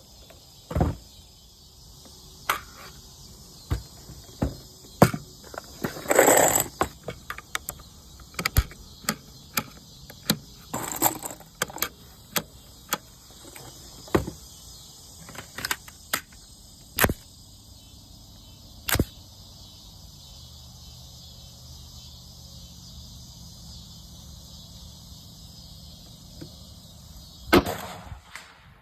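Irregular sharp clicks and knocks, some coming in quick clusters, over a steady high-pitched hiss.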